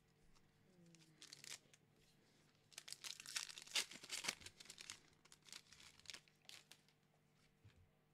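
A Pokémon Battle Styles booster pack's foil wrapper being torn open and crinkled. It is loudest in a cluster of rips and crackles from about three to four and a half seconds in, with lighter rustling and clicks of handling before and after.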